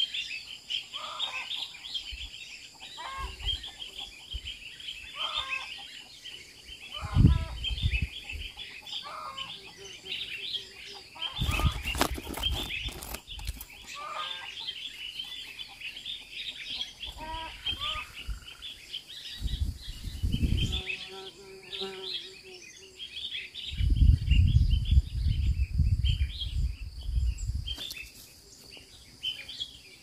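Outdoor garden ambience: many small birds chirping, with short clucking calls of domestic fowl repeating every second or two. Several low rumbling bursts come and go, the longest in the last few seconds.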